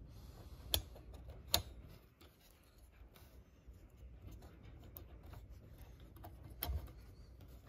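Small clicks and taps of a plastic model-locomotive side frame being handled and pressed into place on its truck: two sharp clicks about a second apart in the first two seconds, a few faint ticks, then a duller knock near the end.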